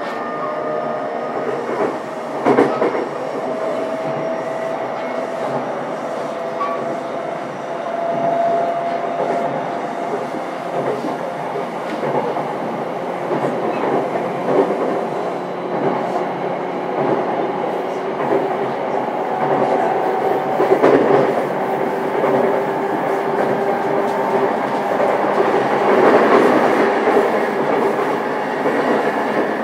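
Running noise heard from inside a JR East E233-7000 series motor car (MoHa E233-7003) on the move: steady wheel-and-rail rumble with rail-joint clicks and a faint motor whine that creeps up in pitch. A sharper knock stands out about two and a half seconds in.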